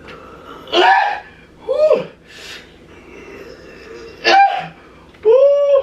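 A man's exaggerated workout grunts and squeals made while straining at a lift: four loud vocal bursts, the second dropping in pitch and the last a held, pitched whine near the end.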